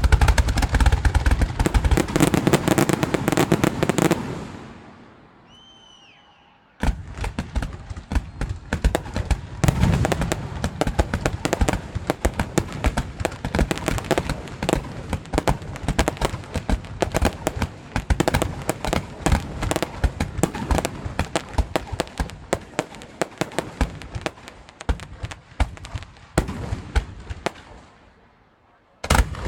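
Fireworks display: dense, rapid crackling and popping of bursting shells. It dies away about four seconds in, starts again abruptly about seven seconds in and runs on for a long stretch, fades near the end, then a fresh burst goes off at the very end.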